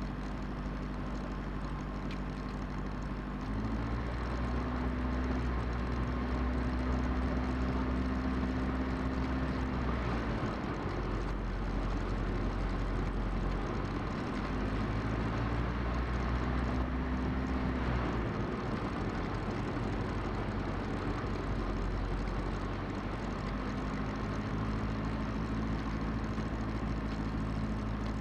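The diesel engine of a Cessna 172 running at low power, heard from the cockpit, its speed rising and falling several times: up a few seconds in, back down after about ten seconds, up and down again in the middle, and up once more near the end, as when taxiing on the ground.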